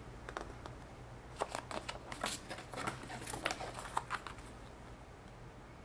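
Pages of a glossy paper booklet rustling as they are turned by hand, a run of short crisp rustles and flicks, mostly between about one and four seconds in.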